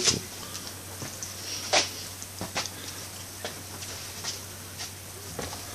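Quiet room with a low steady hum and a few faint, sharp clicks spaced irregularly over several seconds.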